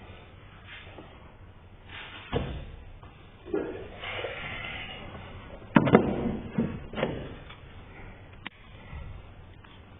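A few hard knocks and clunks of parts and tools being handled during work on a car's air intake. The loudest come in a quick cluster about six to seven seconds in.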